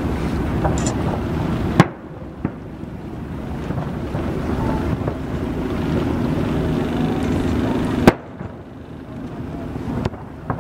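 Firework shells bursting with two sharp bangs about six seconds apart, over a steady low rumble of the boat and wind on the microphone.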